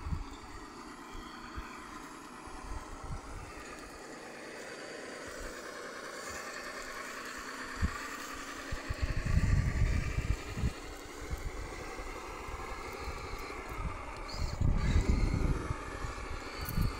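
Electric motor and gearbox of a Tamiya Toyota Hilux RC crawler whining as it drives over dirt and twigs, the pitch rising and falling with the throttle. Loud low rumbles come in about nine seconds in and again near the end.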